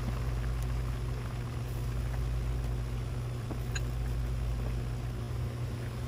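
Pot of rice and broth bubbling on a stove burner over a steady low hum, with a few faint ticks as ingredients drop in.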